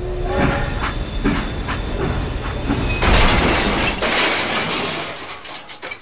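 Train sound: a low rumble with irregular clattering, then a loud hiss from about three seconds in that slowly fades away.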